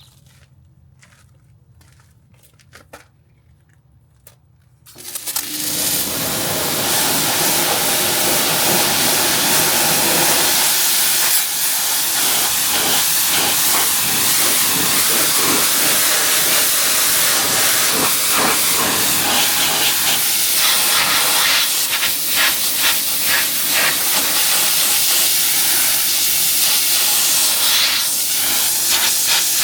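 A few faint clicks, then about five seconds in a pressure washer starts spraying: a loud, steady hiss of high-pressure water striking a car's bodywork, shifting a little as the jet moves over it.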